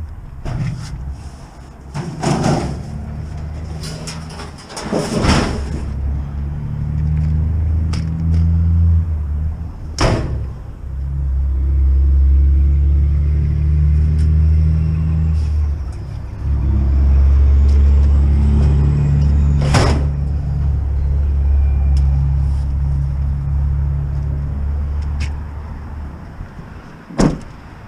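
Van engine and road noise heard from inside the cabin: a steady low rumble that swells and eases as it drives. Several sharp knocks or rattles cut through it, the loudest about ten and twenty seconds in.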